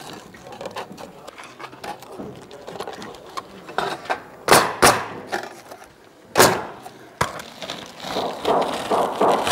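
Pneumatic coil roofing nailer firing nails through step flashing into the roof deck: two sharp shots in quick succession about four and a half seconds in, a third about two seconds later, then a lighter knock. Light rustling of hands on the flashing and shingles between shots.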